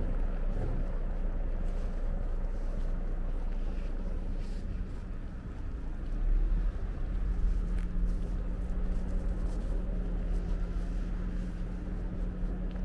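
An engine running with a steady low rumble and hum, swelling louder for a couple of seconds around the middle.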